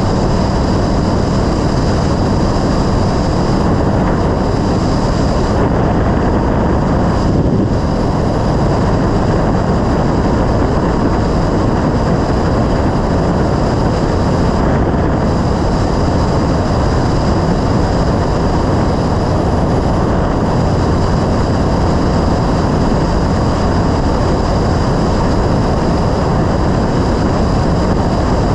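Yamaha Road Star XV1600 cruiser motorcycle under way at a steady speed: its air-cooled V-twin engine runs evenly beneath a constant rush of noise.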